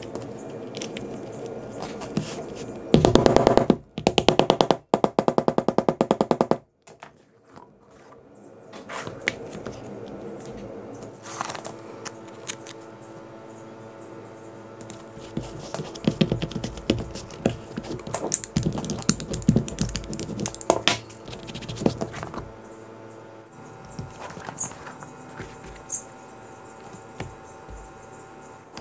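Soft background music over leatherworking handling noises: taps and knocks of tools on the bench. Near the start come three short bursts of a loud, rapid, even rattle.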